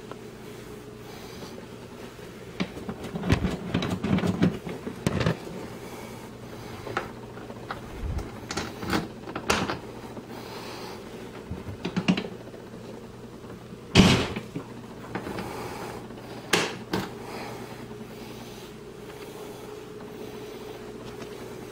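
Scattered hollow plastic knocks and clacks as a children's ride-on toy jeep is handled, the sharpest knock about 14 s in, over a steady low hum.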